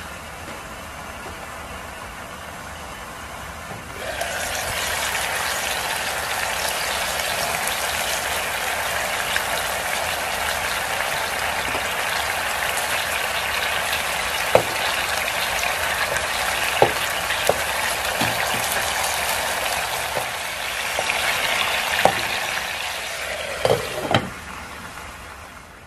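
Pork belly slabs sizzling in a pan. The first few seconds are a muffled sizzle under a glass lid, then a loud crackling sizzle starts suddenly about four seconds in as the pan is uncovered. Several sharp clinks come later, the last two as the glass lid is handled near the end, after which the sizzle fades.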